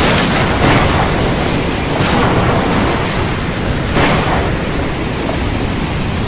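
Stormy sea: a loud, steady rush of wind and breaking waves that swells several times.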